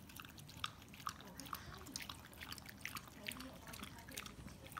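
A dog lapping and chewing soupy wet food from a stainless steel bowl: faint, irregular wet smacking clicks, several a second.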